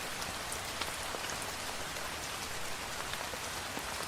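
Steady rain falling, with scattered individual drop ticks.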